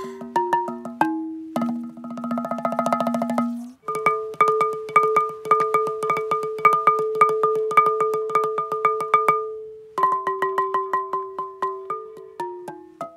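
Music on struck, pitched percussion that sounds like a xylophone or marimba. Quick stepping notes give way to a fast tremolo, then to a run of evenly repeated strikes over a held lower note, and then to stepping notes again.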